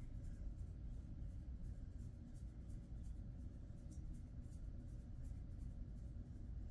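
Hands rubbing and scratching a Jindo dog's coat in a massage: a soft scratchy rustle of fingers on fur in repeated strokes, a few a second, over a low steady rumble.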